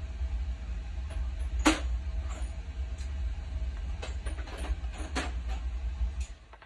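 A few sharp clicks and knocks from hand tools being handled on a workbench, the loudest about a second and a half in, over a low rumble that cuts out shortly before the end.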